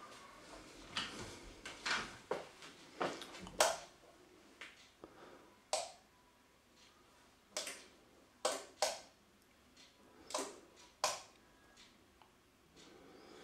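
About a dozen short, sharp clicks and knocks at irregular intervals, with quiet room tone between them.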